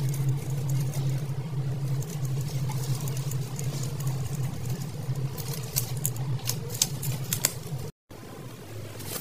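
A steady low hum, with scattered light clicks and scratches in the second half. The sound drops out completely for a moment near the end.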